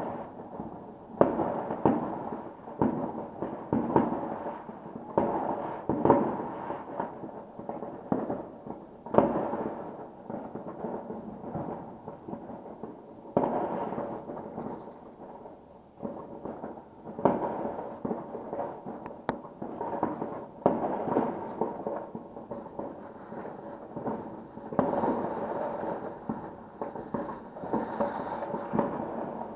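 Fireworks going off in many places at once: a near-continuous patter of bangs and crackling, with louder booms every second or two.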